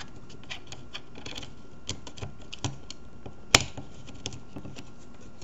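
Small clicks and taps of a Crosman 760 Pumpmaster air rifle's trigger parts being handled and fitted into the receiver, with one sharp, louder click about three and a half seconds in.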